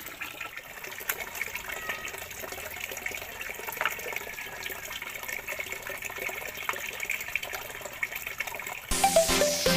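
Wet splashing and hands scrubbing a soaked dog's coat during a bath, with small wet clicks and drips. Electronic music comes back in near the end.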